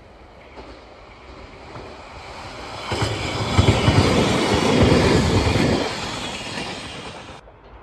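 Electric multiple-unit train passing close by: a rush of wheel and rail noise that builds, peaks about four to five seconds in with a rhythmic clatter of wheels over the rails, then fades. It cuts off abruptly near the end.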